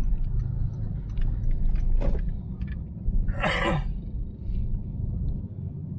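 Car cabin noise while driving: a steady low rumble of engine and road. About three and a half seconds in comes a short hiss lasting about half a second.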